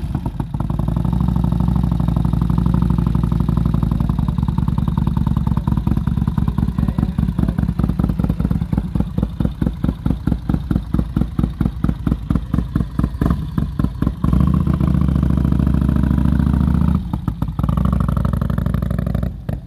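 Café-racer motorcycle with a large V-twin engine running just after a kick start: a steady idle, then a loping, pulsing beat of about four or five pulses a second for several seconds, steady again, and pulsing once more as the bike moves off.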